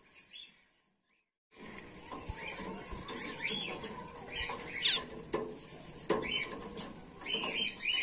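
A cage of Bengalese finches and zebra finches chirping together, many short, high, squeaky calls overlapping. The sound drops out briefly about a second in, then the chirping resumes.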